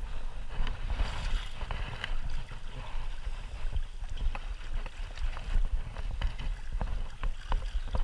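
Shallow stream water rushing over riffles, with a low rumble of wind buffeting the microphone. Scattered light clicks come from a spinning reel being wound as a hooked trout is played.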